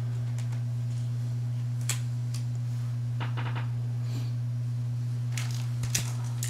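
A steady low hum, with a few faint taps and rustles of trading cards being handled and set down, about two seconds in, around the middle and near the end.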